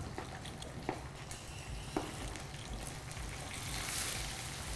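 Chicken wings deep-frying in a pot of oil at about 325–350 °F, a steady sizzling and bubbling from the moisture in the wings hitting the hot oil, swelling louder near the end. Two light clicks come about one and two seconds in.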